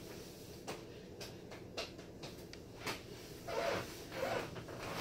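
A few faint, short clicks and light knocks of kitchen handling, about one every half second for the first few seconds.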